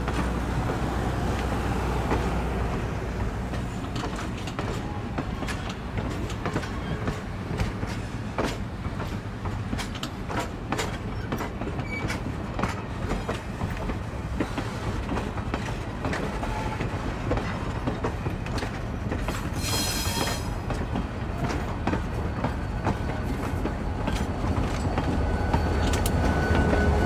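Passenger excursion train rolling past, its wheels clicking irregularly over rail joints over a steady low rumble. There is a brief hiss about two-thirds of the way through, and the rumble grows louder near the end.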